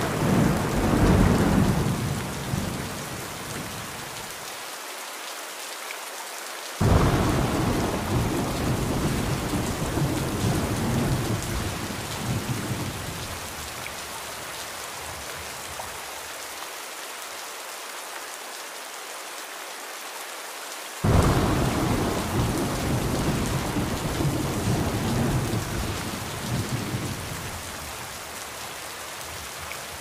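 Steady rain with rolling thunder: a rumble dies away in the first few seconds, then two more peals start suddenly, about seven and about twenty-one seconds in, each rumbling for several seconds before fading.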